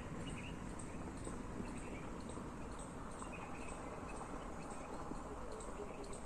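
Faint outdoor ambience: steady background noise with scattered bird chirps and a light, regular ticking, about two or three ticks a second.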